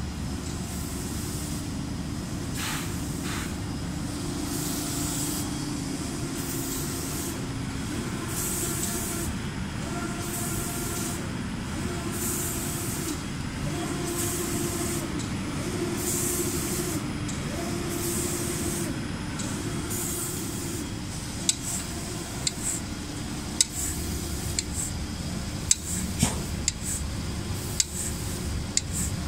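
Automatic spray-painting line for cabinet doors and furniture panels running: a steady machine hum under the hiss of the reciprocating spray guns, which comes in short bursts about once a second. In the last several seconds, sharp clicks and knocks from the machinery.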